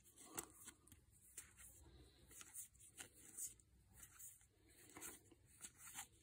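Near silence with faint, scattered soft ticks and rubbing of trading cards being slid one by one from one stack to another in the hands.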